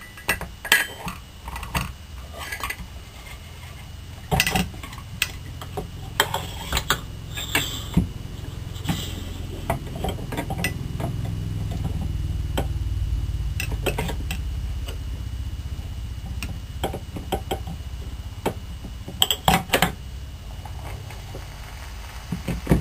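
Scattered metal clinks and knocks as parts of a model Rider hot-air engine are handled and lifted off by hand, with a quick cluster of clicks about two-thirds of the way in. A low rumble swells through the middle and fades.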